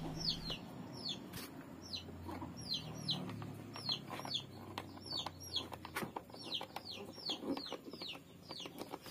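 A bird chirping over and over in short falling chirps, about two a second. A few sharp clicks come from a screwdriver working at the screws of the sprayer's plastic bottom cover.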